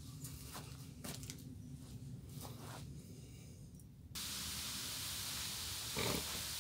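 Wood fire burning in the firebox under a cane kettle: a low rumble with a few scattered crackles. About four seconds in this changes abruptly to the steady hiss of the kettle's water at a rolling boil, with a short louder noise near the end.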